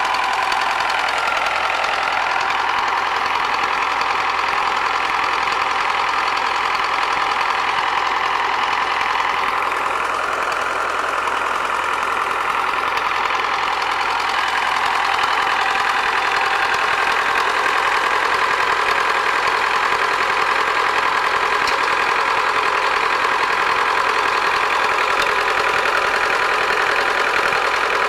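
Fortschritt E 303 hay mower's diesel engine running steadily on a test run after its water pump has been replaced.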